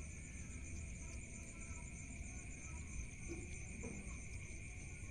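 Steady chorus of night insects, a continuous high trilling at two pitches, over a faint low rumble.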